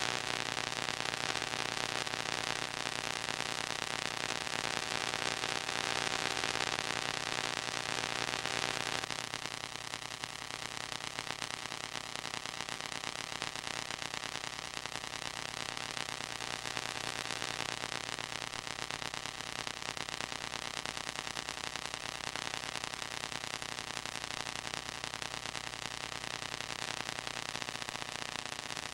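Steady static hiss with a low hum and a few steady tones, the noise floor of an old home-movie soundtrack. About nine seconds in, some of the tones drop out and it becomes slightly quieter.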